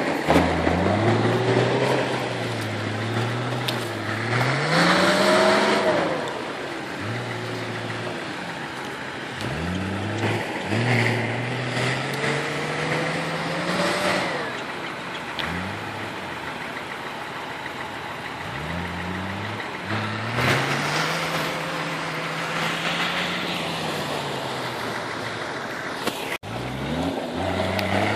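Off-road 4x4's engine revving up and easing off over and over as the vehicle works through deep snow, short of traction without a differential lock.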